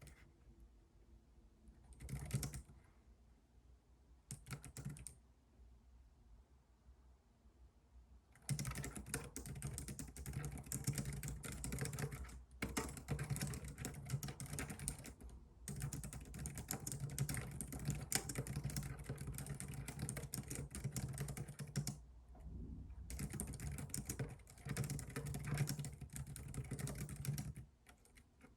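Computer keyboard typing: two short bursts of keystrokes early on, then fast, continuous typing from about eight seconds in, broken by a few brief pauses.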